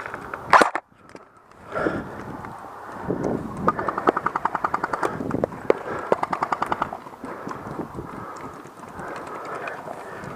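Airsoft guns firing: two sharp cracks near the start, then two rapid full-auto bursts of a second or so each around the middle.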